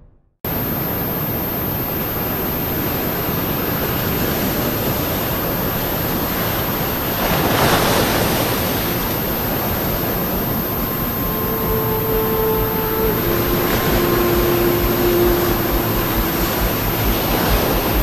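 Sea waves washing onto a sandy beach, a steady surf wash that sets in just after the start, with one wave breaking louder about seven to nine seconds in.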